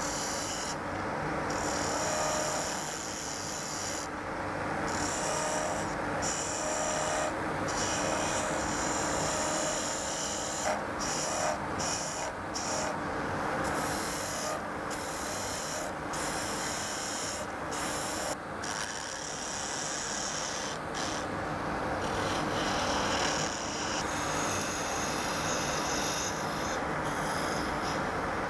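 Turning chisels cutting a spinning wooden spindle on a Union Student wood lathe: a continuous scraping hiss of shavings peeling off the wood. The hiss comes and goes as the tool bites and eases off the cut.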